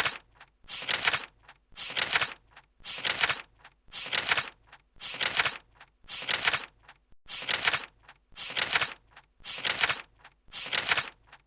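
Rhythmic scraping strokes, about one a second, each a short noisy rasp, like a tool worked back and forth against a surface.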